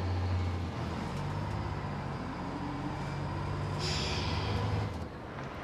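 City street traffic: a heavy vehicle's engine running with a low, steady hum, and a short hiss about four seconds in.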